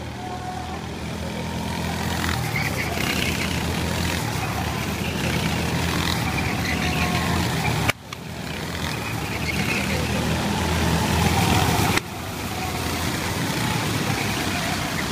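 A pack of rental go-karts racing past, their small engines buzzing together and getting louder as the karts come closer. The sound breaks off abruptly twice, about halfway through and near the end.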